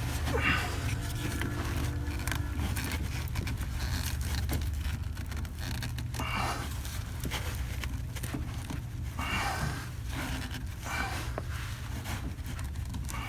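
A person breathing heavily in short puffs, with scattered scraping and handling clicks, over a steady low hum.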